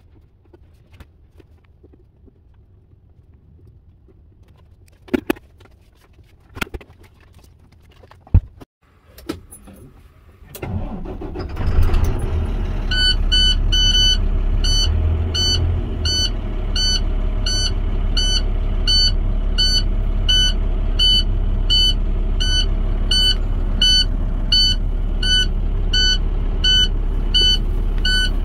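A few sharp clicks and knocks, then about ten seconds in a Peterbilt semi-truck's diesel engine cranks, starts and settles into a steady idle. Over the idle, a high warning beep repeats evenly.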